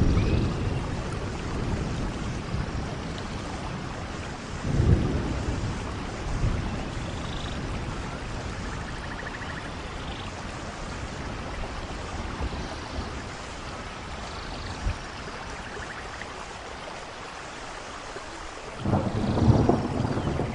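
Steady rain falling on rainforest foliage, with low rolls of thunder swelling about five seconds in and again, loudest, near the end.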